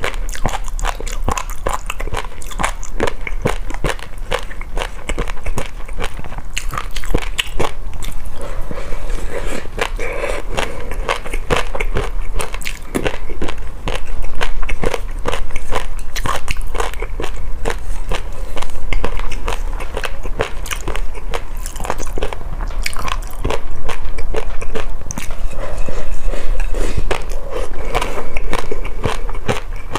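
Close-miked eating of a crunchy noodle and jelly dessert: continuous biting, crunching and chewing with dense crackles, louder in bursts over the second half.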